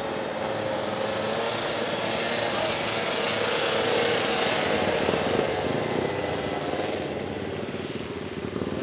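Small Kymco quad's engine running at low speed. It gets louder toward the middle and then fades as the quad rolls past and away.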